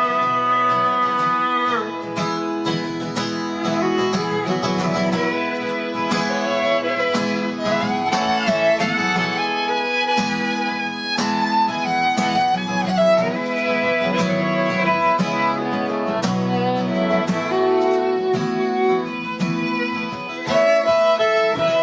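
Instrumental break in a live acoustic folk song: a fiddle plays a sliding melody over strummed acoustic guitar.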